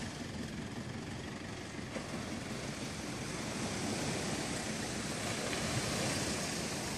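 Steady wind rumbling on the microphone over the wash of small waves breaking on the beach.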